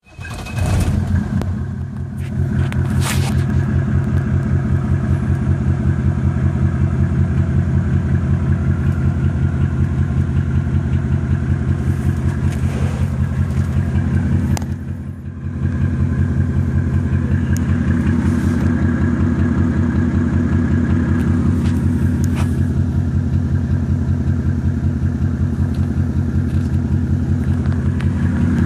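Mercedes E300's OM606 inline-six diesel idling roughly with a steady pulsing beat and a few sharp knocks. The owner puts the rough idle mainly down to bad motor mounts and takes the random knock for a possibly leaky injector.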